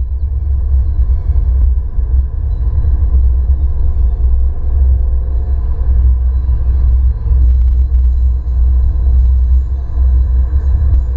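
Alfa Romeo MiTo heard from inside the cabin while driving: a steady, deep rumble of engine and road noise carried through the body and windscreen, with a faint engine hum above it.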